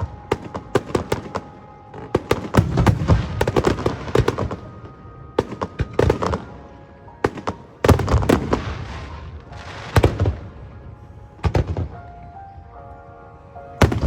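Fireworks bursting in rapid crackling volleys, with single loud bangs about 8, 10 and 11.5 seconds in. Music with a stepped melody plays underneath.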